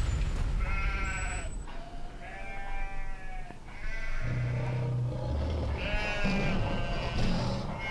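Four drawn-out, wavering, bleat-like cries, with a low steady drone coming in about four seconds in.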